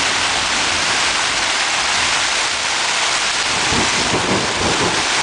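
Heavy rain pounding on a tent's fabric, heard from inside as a loud, steady hiss.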